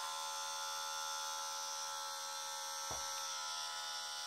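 LR Zeitgard facial cleansing brush's small electric motor running with a steady buzz while water is tipped over its brush head, to show it is splash-proof. A single light knock about three seconds in.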